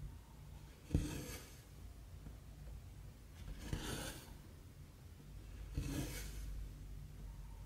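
Cross-stitch thread pulled through stamped 11-count cross-stitch fabric: a needle click followed by a short rasp of thread drawn through the cloth, three times, two to three seconds apart.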